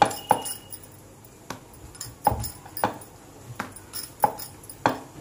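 Dough being rolled out with a wooden rolling pin on a wooden rolling board, with about eight sharp, irregular clacks as the pin and board knock.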